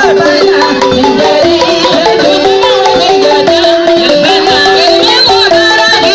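Balafon music: a fast, continuous run of short struck wooden-bar notes stepping up and down in a traditional folk style.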